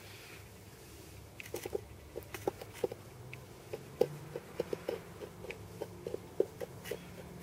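Plastic spoon scraping and clicking along the edge of a moulded composite wing as it smooths a bead of epoxy: a string of small, irregular clicks and taps starting about a second and a half in.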